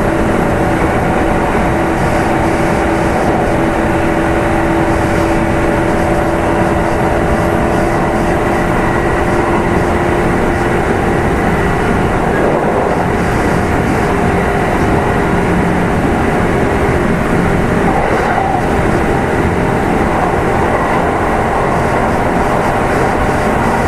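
Running sound inside the motor car of a Kintetsu 2800 series electric train at speed: a steady traction motor hum over wheel-on-rail noise. The motor's steady tones fade out about eleven seconds in, leaving the rumble of the wheels and car body.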